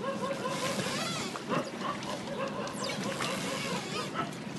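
Crowd hubbub: many people's voices talking and calling at once, overlapping into a steady mix.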